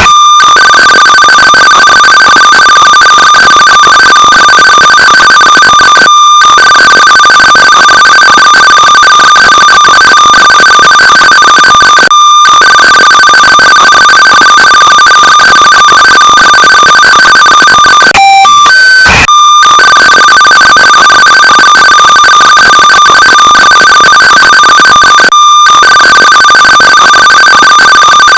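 Fan-made Emergency Alert System alarm: a very loud, harsh two-tone attention signal held steady in long stretches of about six seconds, broken by short gaps. About 18 seconds in, a quick run of short beeps of changing pitch cuts in before the steady tone resumes.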